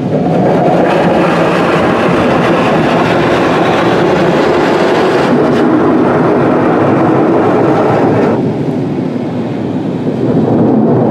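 Loud high-pressure water spray from a Kärcher Opti Wash 8000 gantry car wash blasting against the car, heard from inside the cabin. It eases about five seconds in, drops away around eight seconds, and starts again near the end.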